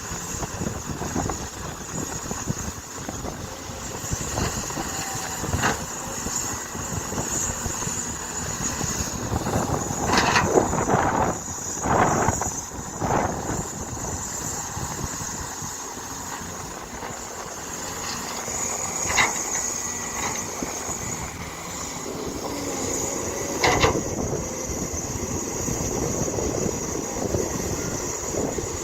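Excavator at work: its engine runs steadily under a continuous high squeal, with several sharp metallic clanks, a cluster about a third of the way in and single ones later.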